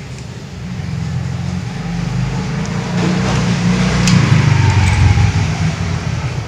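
A motor vehicle's engine passing close by, growing louder over the first few seconds and easing off a little near the end.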